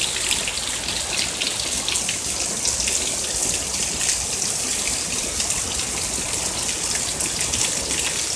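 Heavy rain pouring down in a downpour: a steady hiss with many close drops splashing.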